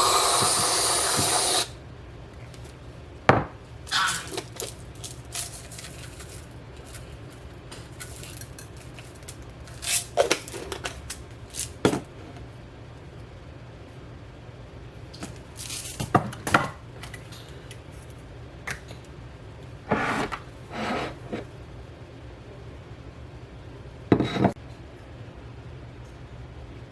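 A short hiss lasting under two seconds at the start, then scattered knocks, clicks and rustles of things being handled, over a low steady hum.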